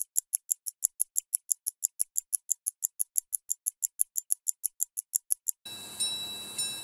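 Mechanical watch movement ticking fast and evenly, roughly six crisp high ticks a second. It stops abruptly near the end and gives way to a faint hiss with a steady high tone and a softer tick about every half second.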